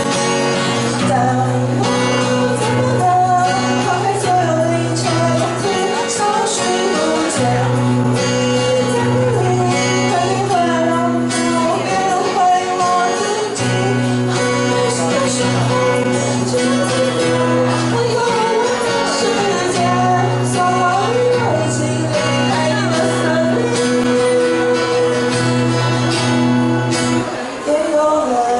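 Live acoustic song: a voice singing over acoustic guitar, with a shaker keeping time, in a hall.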